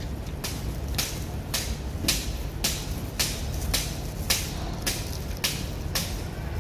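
Close-up chewing of crunchy food, a sharp crunch about twice a second, over a steady low rumble.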